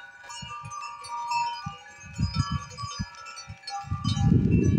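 Many bells on a passing herd of Anatolian black goats ringing together, a continuous jangle of overlapping tones. Low thumps join about two seconds in, and a heavier low rumble near the end is the loudest sound.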